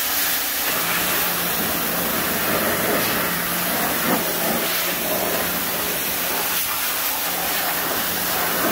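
Powerhorse 1800 PSI electric pressure washer spraying a jet of water from its steel lance into a truck's wheel well and tire: a steady hiss of spray hitting the plastic liner and rubber, with a steady low hum underneath.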